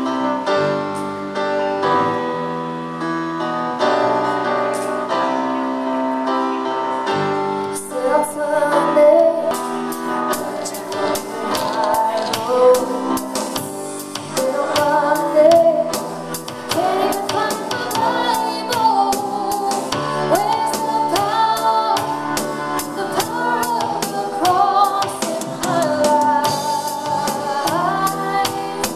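Live worship band: sustained keyboard chords alone for about the first eight seconds, then drums and a female lead vocal come in and the song continues with band and singing.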